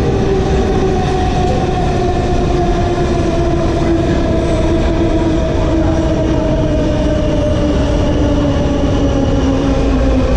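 Subway train slowing down, its motor whine falling steadily in pitch over a loud, constant rumble of wheels on rail.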